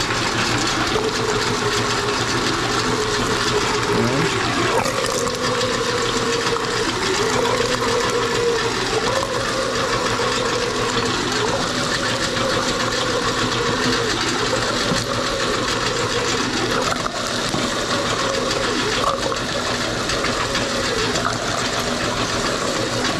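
A 3 horsepower electric motor driving a large meat grinder, running steadily as it grinds raw pork. Its hum sags in pitch and recovers every two to three seconds.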